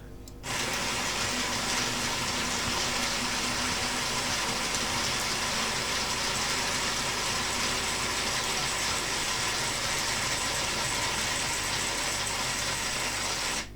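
Robot arm's drive motor and gearing moving a joint: a steady mechanical whir with faint steady tones, starting about half a second in and stopping just before the end.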